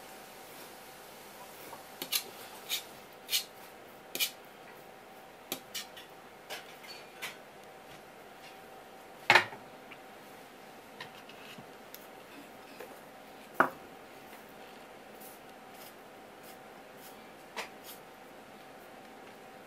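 Kitchen knife clicking against a wooden cutting board as spear squid is cut into thin strips, a quick run of sharp taps a couple of seconds in. Two louder knocks of utensils or the knife set down on the board follow, about nine and fourteen seconds in, over a faint steady hum.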